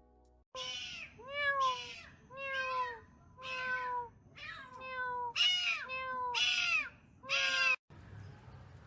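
A domestic cat meowing repeatedly, about ten meows in quick succession, several falling in pitch, stopping abruptly near the end.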